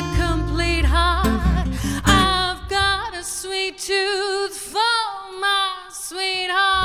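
Female jazz vocalist singing with vibrato over a small acoustic band of double bass and acoustic guitar. The bass drops out about two seconds in, leaving the voice nearly alone.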